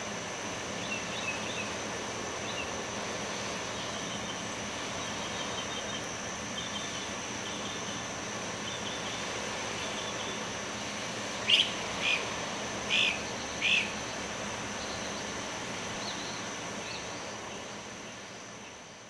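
Outdoor nature ambience: small birds chirping over a steady hiss with a continuous high-pitched tone. Four louder bird calls come in quick succession a little past the middle, and the whole sound fades out near the end.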